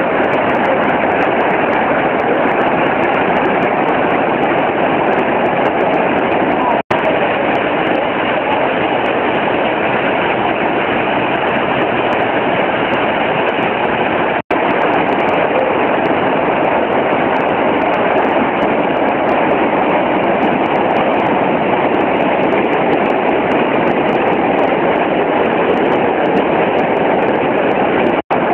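Steady rush of fast river water and a waterfall in a narrow rock gorge. The sound cuts out for an instant three times.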